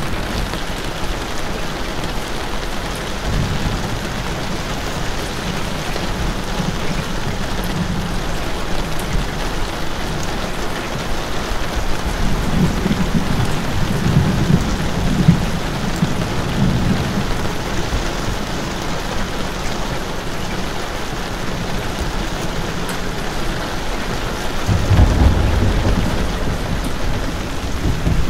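Steady heavy rain falling. A low rumble swells up three times beneath it, the strongest near the end.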